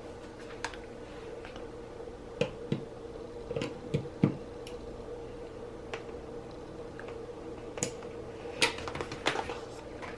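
Scattered light clicks and taps of an iPad charger, its Lightning cable and power adapter, being handled and plugged in. A steady faint hum runs underneath.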